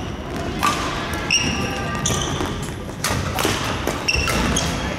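Badminton doubles rally: rackets striking the shuttlecock in sharp cracks, with court shoes squeaking and thudding on the wooden floor as the players move.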